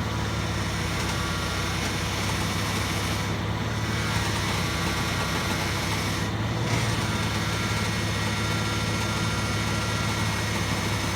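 A car's steering being turned with the engine idling, giving a rasping, whining groan over the steady engine hum, like a dying cat. The owner has topped up the power steering fluid without curing it and puts part of the noise down to a worn ball joint.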